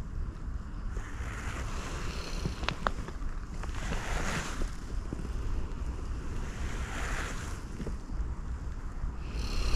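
Wind buffeting the microphone over sea water washing against the harbour quay, the wash swelling and fading every few seconds. A few faint sharp clicks come around three seconds in.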